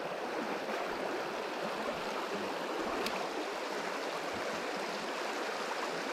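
Shallow river riffle running fast over stones and weed: a steady rush of water, with one short click about three seconds in.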